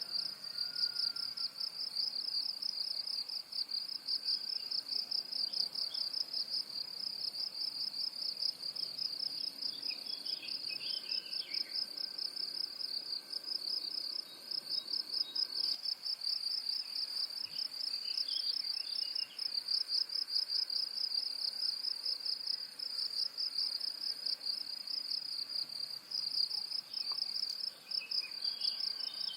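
A steady, high-pitched insect trill pulsing evenly without a break, with faint bird chirps underneath now and then.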